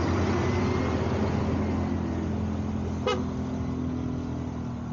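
Motorcycle engine running steadily at low cruising speed, with wind and road noise. A single short high beep sounds about three seconds in.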